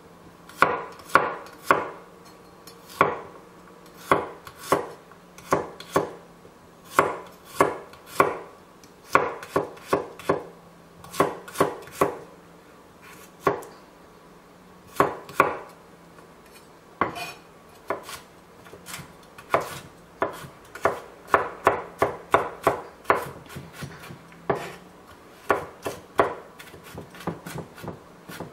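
Chef's knife chopping fresh garlic cloves on a wooden cutting board: sharp knocks of the blade on the wood, some single and some in quick runs, coming faster and closer together in the second half as the garlic is minced.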